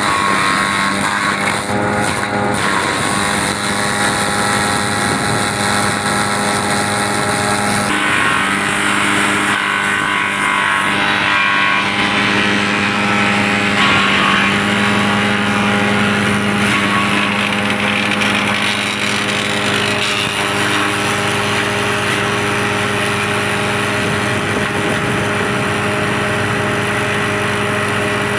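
A 14 hp wood chipper's engine running steadily at a constant speed, its tone shifting slightly about eight seconds in.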